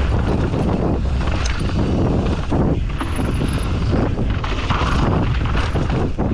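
Mountain bike descending a rough, rocky trail at speed: steady wind buffeting on the microphone, with tyres on dirt and rock and the bike's chain and frame clattering over bumps.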